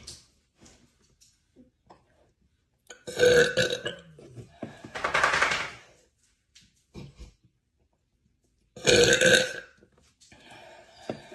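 A woman burping: two loud, deep burps about six seconds apart, the first followed straight away by a longer, noisier rasping sound.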